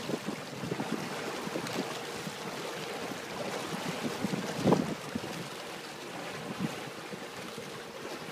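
Wind buffeting the microphone over water lapping, with one stronger gust a little past halfway.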